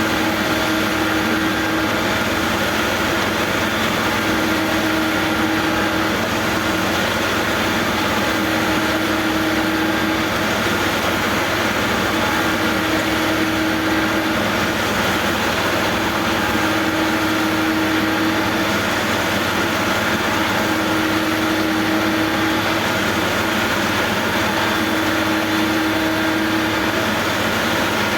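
Heavy machinery engine running steadily with no change in speed, with a hum that swells and fades about every four seconds.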